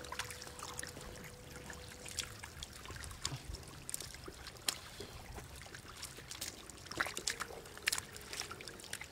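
Shallow muddy water trickling and splashing as a woven bamboo basket and hands scoop through it, with a sharp splash every second or two.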